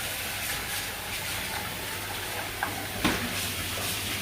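Kitchen tap running steadily, with a low hum beneath and two light knocks about two-thirds of the way through.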